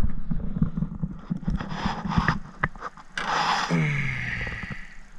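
Handling noises as a bluegill is picked up off the carpeted deck of an aluminium jon boat: scattered knocks, taps and scrapes, with a short rustling rush about three seconds in.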